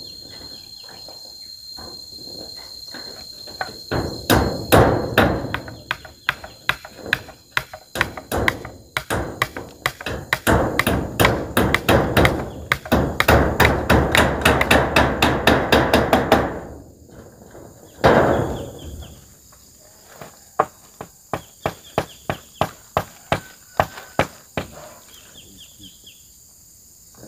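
Hammer nailing corrugated zinc roofing sheets down: runs of rapid blows, a pause, then a steady string of strikes about two a second near the end.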